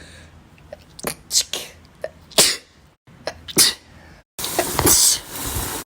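Short, sharp sneezes in quick succession, about five in the first four seconds, then a louder, noisier stretch that starts abruptly.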